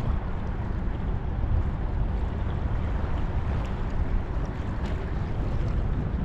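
Wind buffeting the microphone: a steady, uneven low rumble with a rushing hiss over it.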